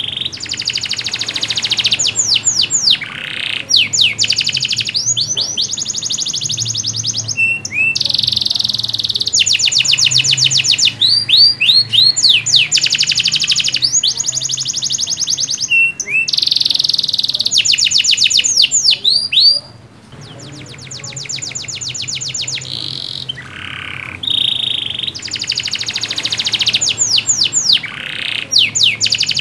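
Domestic canary singing a long, loud, continuous song. It strings together runs of very rapid trills and rolls with upward-sweeping whistled notes, with only brief breaks between phrases.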